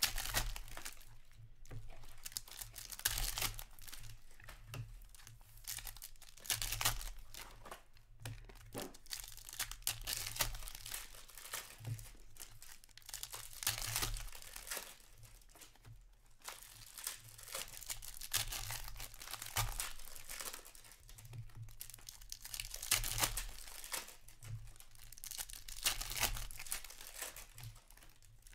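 Foil trading-card pack wrappers being torn open and crinkled by hand, in repeated irregular bursts of crackling, one pack after another.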